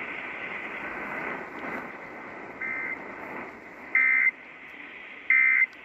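Emergency Alert System end-of-message data tones over the radio: three short bursts of warbling digital tones about a second and a quarter apart, over a steady radio hiss. They mark the end of the alert test.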